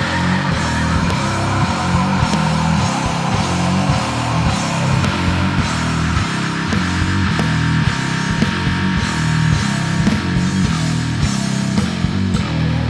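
Loud heavy instrumental rock played on bass guitar with effects and a drum kit, a dense pulsing low end under steady drum hits.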